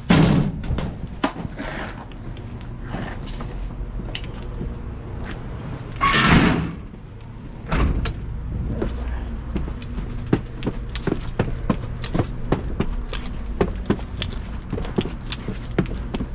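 A door opening and banging shut, with a hiss of rushing noise midway and another knock, then a run of footsteps over a steady low hum.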